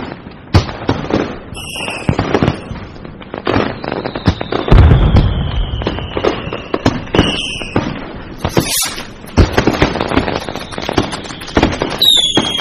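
Fireworks and firecrackers going off in a rapid string of cracks and bangs, with a deep boom about five seconds in. Whistling shells glide down in pitch, one long whistle through the middle and another near the end.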